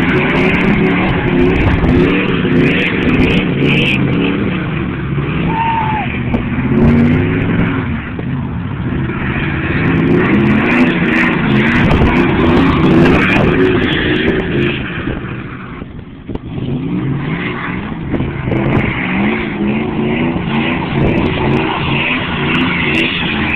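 Pickup truck engines revving up and down as the trucks spin on ice, the pitch rising and falling over and over; the sound dips briefly about two thirds of the way through.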